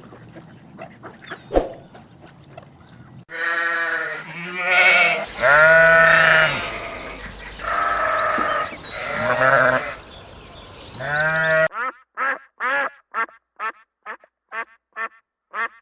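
Farm animals bleating: several drawn-out, wavering bleats, then near the end a quick run of about ten short calls in a row.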